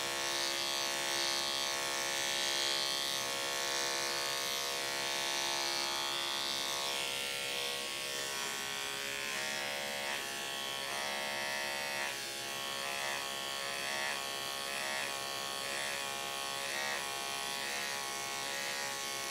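Electric dog-grooming clippers fitted with a skip tooth blade, buzzing steadily as they are pushed through a dog's heavily matted coat. A faint regular pulsing joins the hum in the second half.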